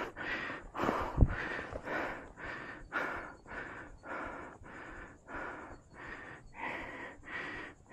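A climber's heavy, rapid breathing close to a chest-mounted microphone, with quick in-and-out breaths about two or three times a second, as he struggles for air on a steep mountain ascent.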